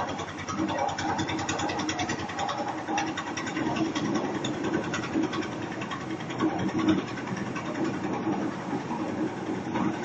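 Engine of a portable drum concrete mixer running steadily, with a fast, even beat.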